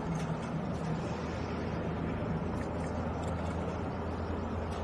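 Steady low machinery hum with a hiss over it, with a few faint clicks as the saw blade's locking nut is worked by hand.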